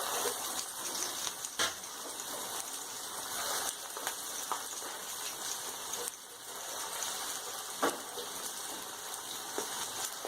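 Hot oil sizzling steadily as small portions of sweet corn pakora batter deep-fry, with a couple of sharp taps, one about a second and a half in and another near the end.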